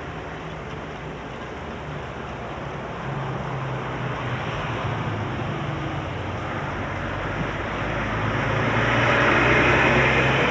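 Night-time storm recorded on VHS tape: a steady rushing noise of wind and rain with a low hum underneath, swelling louder over the last few seconds.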